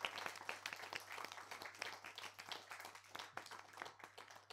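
Applause: many hands clapping in a dense, irregular patter that thins out and fades toward the end, over a faint steady low hum.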